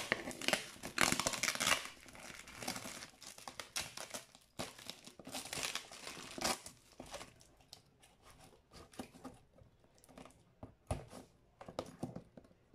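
Clear plastic packaging wrap being cut and pulled off a cardboard box, crinkling and tearing in irregular bursts. It is busiest in the first half and thins to scattered crackles later on.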